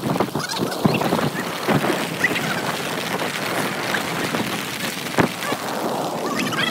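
Steady rain with breaking surf: a dense hiss dotted with many small taps.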